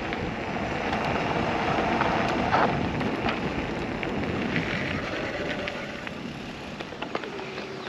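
Husqvarna Hard Cross HC7 e-mountain bike rolling downhill: a steady rush of wind and tyre noise over dirt, easing off near the end.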